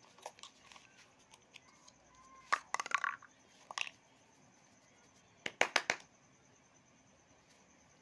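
Hands preparing chewing tobacco: short crunchy rubbing and tapping of the tobacco in the palm, in two quick bursts about two and a half and five and a half seconds in, with a few faint ticks between.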